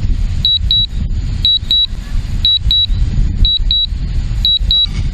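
Strong wind buffeting the microphone in a loud, gusting rumble, over which a DJI Mavic Pro remote controller sounds a high double beep about once a second: its alert that the drone is flying an automatic return-to-home.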